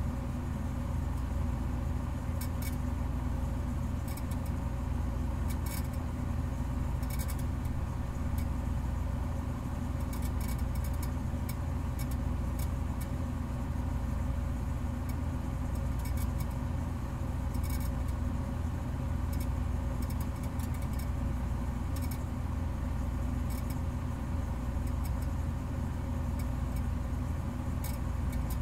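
Steady low mechanical hum made of several held tones, with faint short clicks every second or two.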